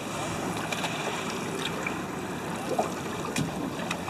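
Steady wash of seawater lapping and splashing against the side of a dory, with a few faint clicks.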